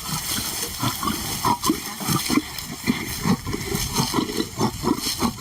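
Lions growling and snarling in short, irregular low bursts, a few a second: a male guarding meat from a lioness at feeding time.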